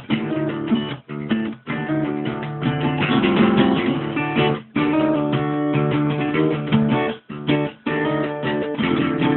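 Acoustic guitar strumming chords steadily, with a few brief, sudden stops between strums.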